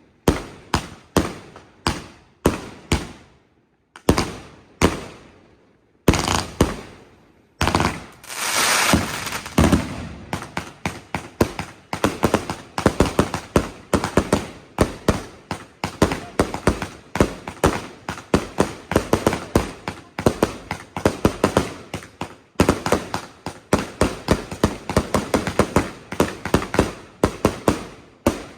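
Fireworks going off: single sharp bangs about two a second for the first six seconds, then a dense, rapid string of pops and bangs that barely pauses until near the end.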